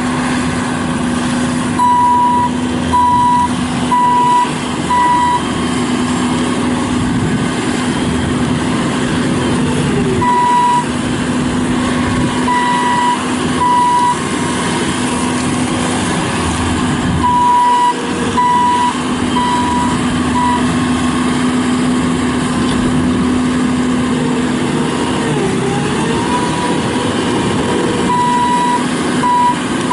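Bobcat S750 skid steer loader's diesel engine running steadily, with its backup alarm beeping about once a second in several short spells as the machine reverses.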